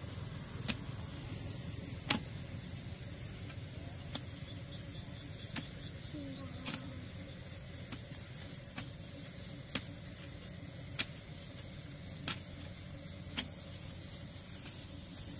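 A short-handled digging tool chopping into soil, about a dozen sharp strikes at an uneven pace of roughly one every second or two. The blow about two seconds in is the loudest.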